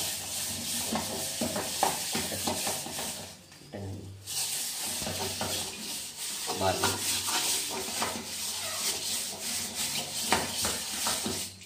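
A scrubber rubbing round the inside of a metal curry pot with cleaning powder: a steady scratchy scouring that stops for about a second a little over three seconds in, then carries on.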